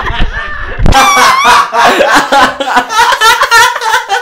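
A man's voice making loud, rapid vocal noises: a rhythmic string of short, high whoops, about three a second, starting about a second in.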